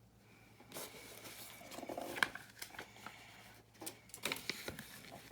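Small plastic building-brick pieces being handled: rustling with scattered sharp clicks and clatters as pieces knock together, the loudest click about two seconds in.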